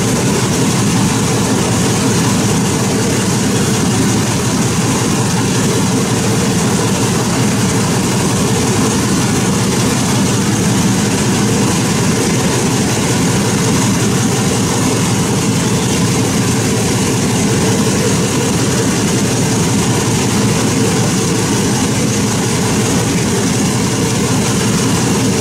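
TU7A narrow-gauge diesel locomotive's V12 diesel engine idling steadily at close range, a loud, even, low engine sound.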